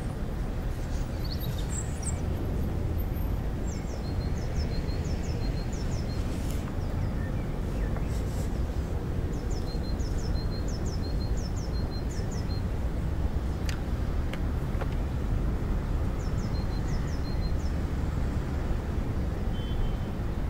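Park ambience: a steady low rumble, with a small bird chirping short high notes in twos and threes through much of it.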